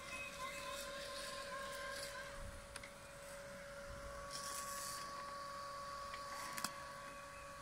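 Worx Landroid S WR130E robot lawn mower running with a steady, quiet whine from its motors. There is a brief hiss about four seconds in and a single sharp click near the end.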